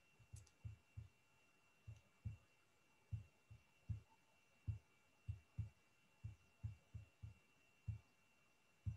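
Faint, irregular low thumps, about two or three a second, coming over a video-call microphone, with a faint steady high-pitched whine underneath.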